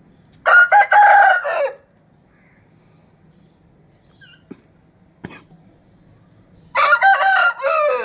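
Rooster crowing twice, about six seconds apart, each crow a little over a second long and dropping in pitch at the end. A few faint short chirps and a click are heard between the crows.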